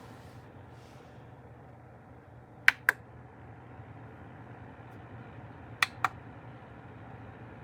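Two quick double clicks, about three seconds apart, over a steady low hum.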